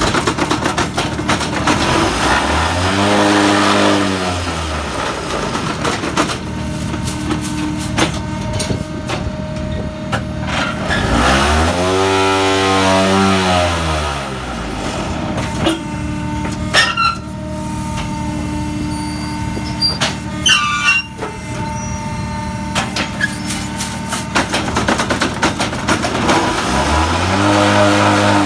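Conmach BlockKing-09MS concrete block machine running production cycles over a steady hum. Three times a whine rises and falls in pitch over about two seconds as the vibrators spin up to compact the paver mix and then run down. Between the vibration cycles come a few sharp knocks and clatter from the machine's moving parts.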